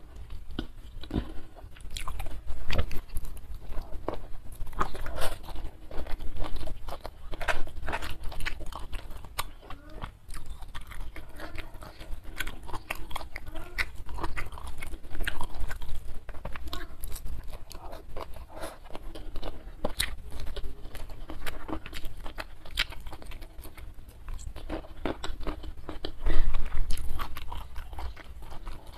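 Close-miked chewing and crunching of a mouthful of rice with stir-fried prawns and vegetables, full of irregular wet mouth clicks and crackles.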